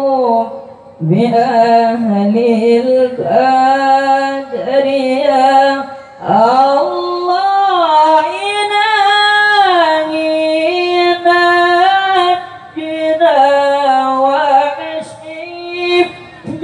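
A young male voice chanting an Arabic devotional melody into a microphone, in long held notes that bend and trill in ornamented runs, with short breaths between phrases about a second in and again near six seconds.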